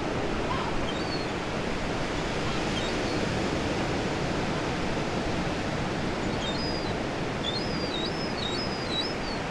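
Ocean waves breaking in a steady wash of surf, with seagulls calling several times in the latter half.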